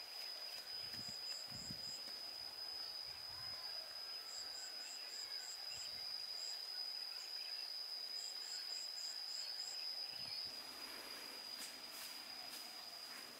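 Outdoor rural ambience dominated by a steady, high-pitched insect drone. Several runs of short high pips at about four a second repeat on top of it.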